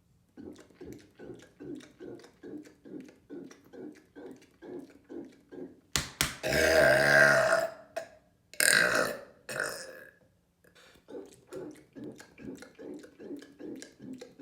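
A man's long, loud, deliberate burp about six seconds in. It is deep and pitched and lasts nearly two seconds. A shorter, noisier burst follows a moment later.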